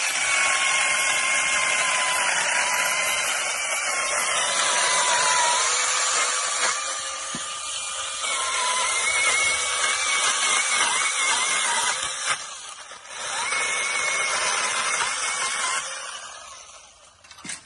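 Battery-powered 8-inch mini chainsaw running, a steady electric motor whine with its pitch dipping and wavering as the chain cuts into wood. It eases off briefly, picks up again, then winds down near the end.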